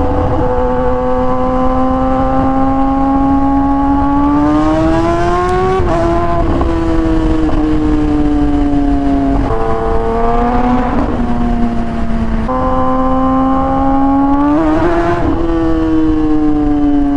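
Kawasaki ZX-10R inline-four engine at highway speed, its revs climbing twice under acceleration with wind rush swelling as it does, and the pitch stepping sharply a couple of times as gears change.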